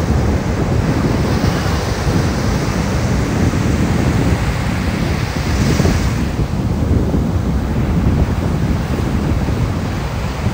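Wind buffeting the microphone over the steady wash of sea surf, with a brief surge of hiss about six seconds in.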